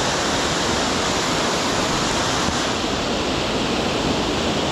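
Waterfall in full spate pouring onto rocks, a steady, loud rush of falling water.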